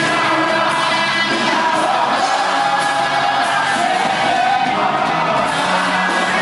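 Worship music with singing, loud and continuous, over a steady beat.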